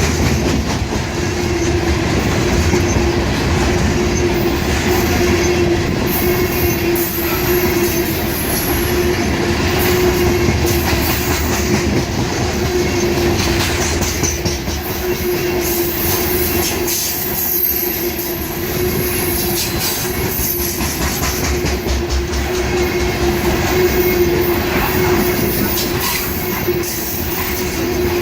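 Freight train cars rolling past: continuous wheel-on-rail noise with a steady droning tone and intermittent high-pitched wheel squeal.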